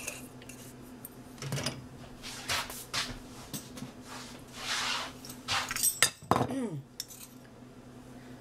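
Kitchen utensils and spice containers being handled while pepper is found and added to a bowl of seasoned flour: a string of short rustling, scraping bursts and light clinks, with a sharper clatter about six seconds in.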